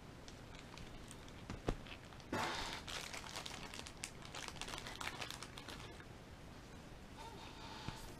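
A single light knock, then a few seconds of crinkling and rustling as hands handle the pistol slide, the work mat and a cotton round.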